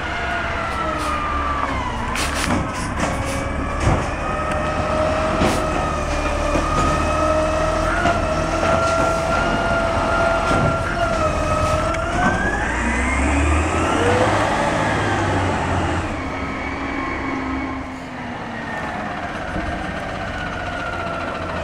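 Garbage truck running with a high-pitched whine that holds steady, then rises and falls near the middle of the stretch. A few sharp knocks sound a few seconds in.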